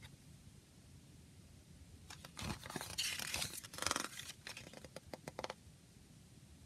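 Paper pages of a CD lyric booklet being turned by hand: a few seconds of rustling and flapping with small crisp clicks, starting about two seconds in and stopping about three and a half seconds later.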